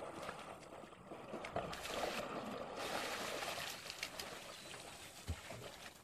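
Cape buffalo wading and wallowing in a muddy pool: water and mud sloshing and splashing around their legs and bodies, with scattered small knocks.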